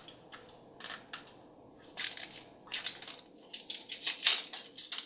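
Crinkly plastic wrapper being torn open and scrunched, in quick irregular crackles that grow busier about two seconds in, as a blind-bag toy surprise is unwrapped.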